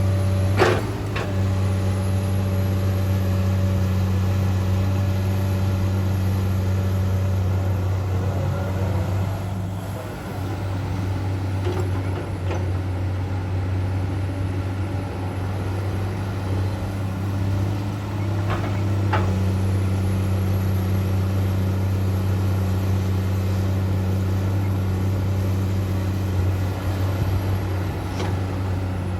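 Komatsu PC200-8 hydraulic excavator's six-cylinder diesel engine running steadily under working load, with a few sharp knocks about a second in, twice around two-thirds of the way through, and once near the end.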